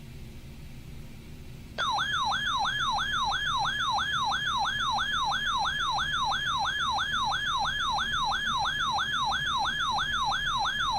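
A weather radio's built-in alert siren sounds for an incoming severe thunderstorm warning. It starts abruptly about two seconds in, after faint receiver hiss and hum. It is a loud electronic warble, a tone sweeping up and down about three times a second.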